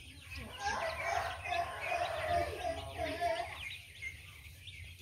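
Young chickens peeping as they feed, many short high chirps, with a louder, lower call from about half a second in to about three and a half seconds.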